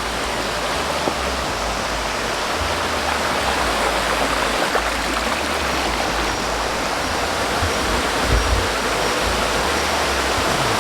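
Steady rushing water of a waterfall, growing slightly louder, with a few low thumps, the strongest about eight seconds in.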